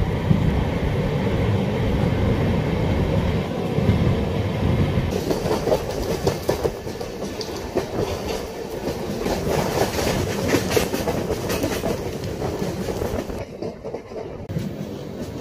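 Express passenger train running at speed, heard from an open coach door: a steady rumble of the coaches with the clickety-clack clatter of wheels over the rails, the clatter sharper from about five seconds in.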